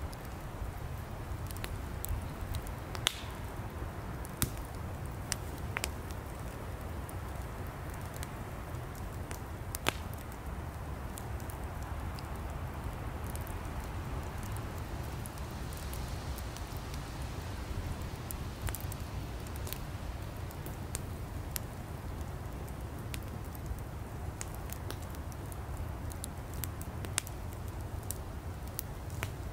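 Wood fire burning, with a steady low rush and hiss and irregular sharp crackles and pops of burning firewood, a few louder snaps among them.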